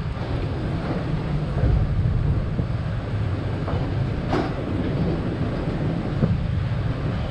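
Passenger train running along the track, a steady low rumble with one sharp click about four and a half seconds in.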